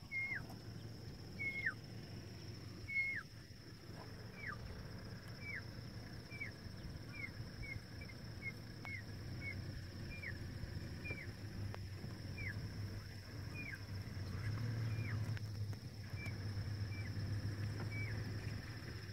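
A bird calling over and over with short whistled notes that slide sharply downward, about one or two a second, over a low steady rumble that grows louder after about fourteen seconds, with a steady thin high tone behind.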